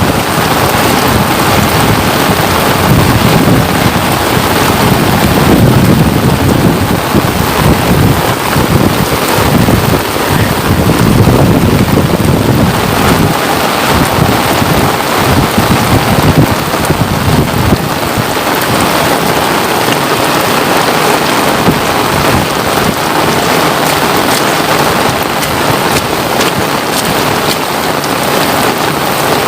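Steady rain falling, a loud even hiss, with an uneven low rumble under it for the first half that thins out about halfway through.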